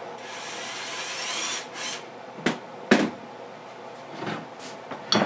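Wooden guitar neck scraping and squeaking against the body as it is pulled out of a tight neck pocket, followed by three sharp wooden knocks.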